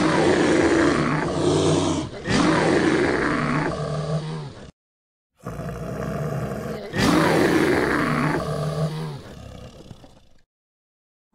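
Bear roaring and growling in two bouts of about five seconds each, with a short silent gap between them.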